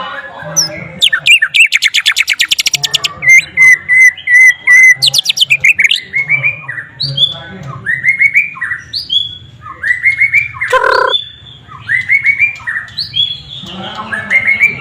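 White-rumped shama (murai batu) singing, its song filled with learned sikatan londo phrases: a fast rattling trill about a second in, then runs of repeated clear whistled notes and short down-slurred phrases. A low steady hum sits underneath.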